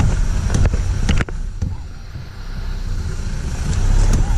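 Several sharp metal knocks and clicks from the sway bar disconnect links of a Jeep Gladiator being worked and struck to free the pin, over a steady low rumble.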